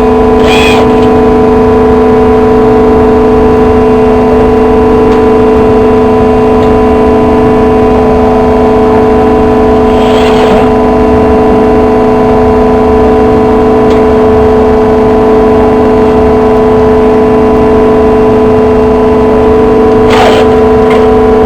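Semi-automatic baler running with a loud, steady mechanical hum. Three short higher-pitched noises come through about ten seconds apart.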